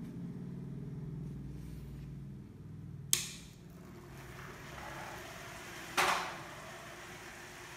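Small DC motor of a homemade beer-can toy car running, its hum fading as the car drives away across a tile floor. There are two sharp knocks, about three seconds in and about six seconds in.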